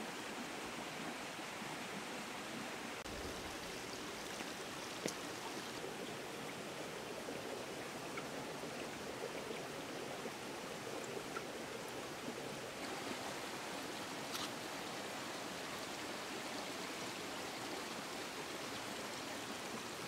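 Steady rush of a small forest stream trickling among stones, with a few faint ticks.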